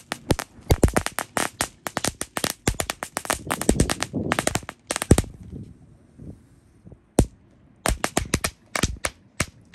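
Magic whip firework crackling as it burns on concrete: a rapid, dense string of sharp pops for about five seconds, then a short lull, then single pops at scattered intervals.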